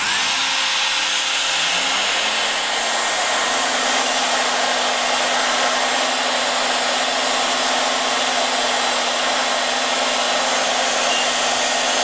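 Shaper Origin handheld CNC router and its attached dust extractor switching on together and running steadily while the router engraves with a small engraving bit. There is a motor hum that rises in pitch over the first few seconds and then holds steady.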